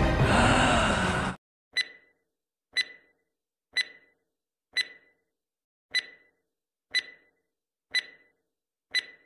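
Music stops about a second and a half in. Then come eight short, sharp, high ticks, one each second, as from a ticking-clock sound effect.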